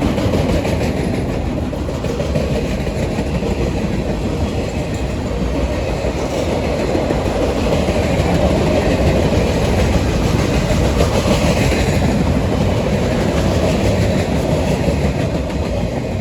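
Train cars rolling past on the rails: a loud, steady rumble of wheels on rail with clickety-clack of the wheels over the rail joints.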